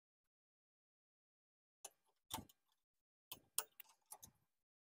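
Short, sharp metal clicks and clinks, about eight of them, starting about two seconds in: drum brake shoes and their return spring (tensioner) being handled and hooked into place on the rear brake.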